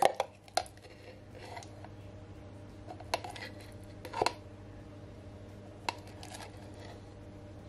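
Metal spoon stirring a thick blended seasoning paste in a glass food-processor bowl: a few scattered light clinks and scrapes of the spoon against the glass, the clearest near the start and about four seconds in.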